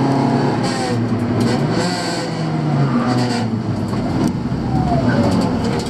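Honda Civic's 1.3-litre dual-carburettor engine heard from inside the cabin, its pitch rising and falling several times as the car revs and shifts. Sharp clicks and knocks come through in the second half.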